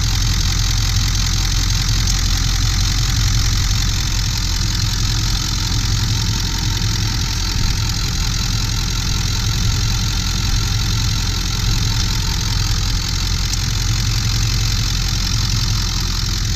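Ford 7.3L Power Stroke turbo-diesel V8 idling steadily.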